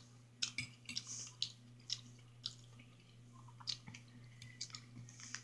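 Close-up wet chewing and mouth smacks of a person eating eggs and tomato: a dozen or so short, soft clicks spread unevenly over the few seconds, over a faint steady hum.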